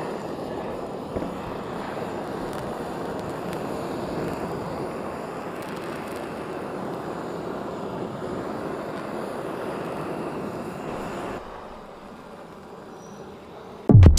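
Handheld gas torch running with a steady flame noise as it melts beeswax onto a wooden board; the flame cuts off about eleven seconds in.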